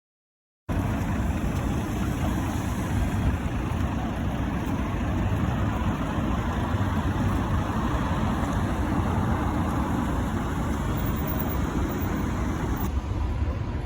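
Steady low rumble of vehicle noise with hiss above it, cutting in abruptly about a second in; the hiss thins near the end.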